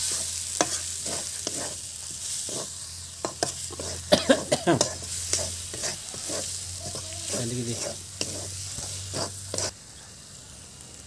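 A metal spatula scraping and knocking against an aluminium kadai, stirring a thick spiced onion-tomato masala that sizzles in hot oil. The stirring strokes come in quick irregular runs and stop near the end, leaving a quieter sizzle.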